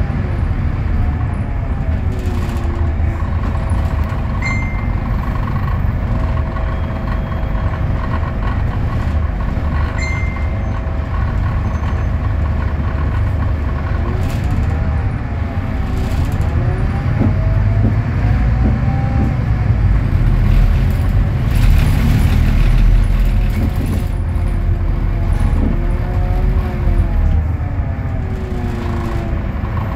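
Scania DC09 five-cylinder diesel engine of an articulated city bus running at a standstill, heard from inside the passenger cabin as a steady low rumble. Tones rise and fall a few times, and a short high chirp sounds twice in the first ten seconds or so.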